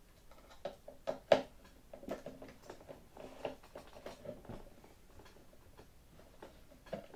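Small clicks and taps of a 3 mm hex driver and a metal screw being worked into a blind nut through the engine mount on a model plane's firewall, with two sharp clicks a little over a second in.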